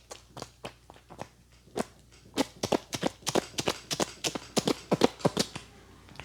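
Barber's hands striking the customer in rhythmic percussive head-massage blows. The slaps are sparse at first, then come quickly, about four a second, from a couple of seconds in.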